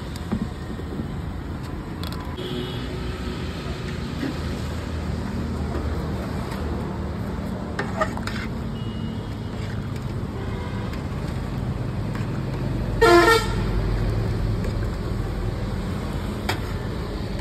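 Street traffic with a steady low rumble of engines, and a vehicle horn honking once, briefly, about thirteen seconds in.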